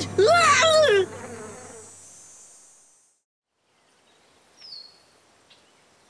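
A cartoon character's shouted cry in the first second, then a high, steady insect buzz that fades away over the next two seconds. Near the end come a faint, short falling chirp and a few light ticks.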